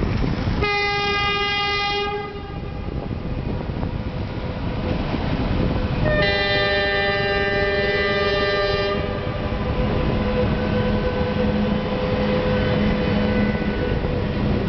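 Locomotive horn blowing twice, a short blast of about a second and then a longer one of about three seconds, over the steady rumble of a train running on the rails. Near the end a low steady hum comes in as the locomotive passes.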